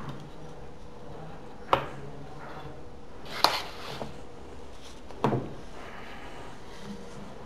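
Three sharp wooden knocks about a second and a half to two seconds apart, the last one doubled, as a wooden wine-thermometer case is put down and a wooden writing desk's fall-front flap is handled.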